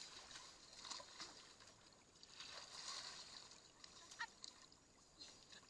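Faint swishing and sloshing of shallow floodwater as people wade and sweep hand scoop nets through it, swelling twice, with a brief sharp sound about four seconds in.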